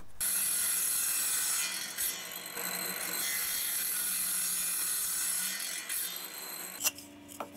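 Table saw cutting a strip of wood into short pieces: a steady noisy run that dips briefly about two seconds in and stops shortly before the end.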